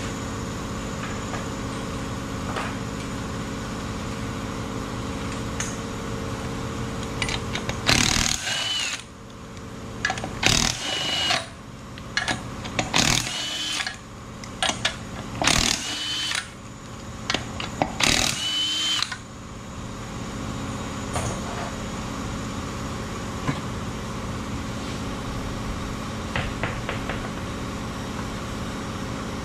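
Cordless impact wrench spinning off wheel lug nuts in five short bursts of about a second each, starting about eight seconds in, each with a high motor whine, over a steady background hum.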